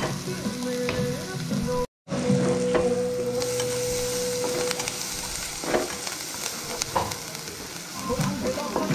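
Chopped onions sizzling as they fry in oil in a frying pan, with a slotted spatula scraping and knocking against the pan as they are stirred toward browning. The sound cuts out completely for a moment about two seconds in.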